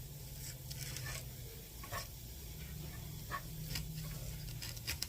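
A spoon stirring ground turkey and onions in a frying pan: scattered short scrapes and clicks against the pan over a faint sizzle, with a steady low hum underneath.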